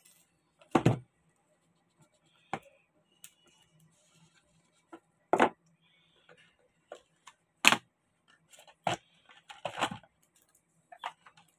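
A cardboard phone retail box being handled and opened on a wooden table: a dozen or so separate knocks and taps, three of them loud, with faint rustling between.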